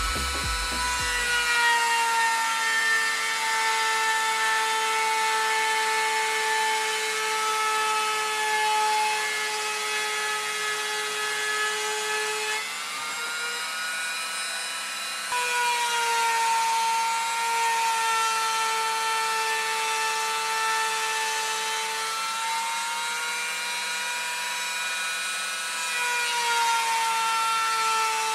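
Rotary-tool spindle of a DIY 3018-style CNC router whining steadily as a PCB cutting bit mills MDF. Its pitch sags and recovers slowly a few times, and it drops a little and runs quieter for a couple of seconds midway.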